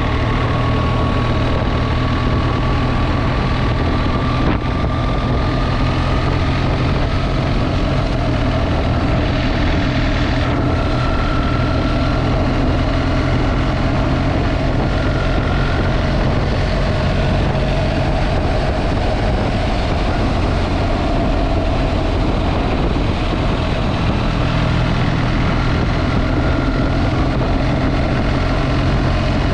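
Motorcycle running steadily while being ridden, a constant engine hum under an even rush of wind and road noise, its pitch creeping slowly upward over the first half.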